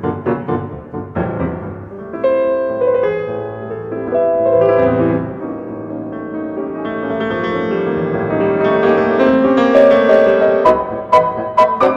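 Background music on piano: a run of struck notes gives way to held, swelling chords after about two seconds, and quick repeated notes return near the end.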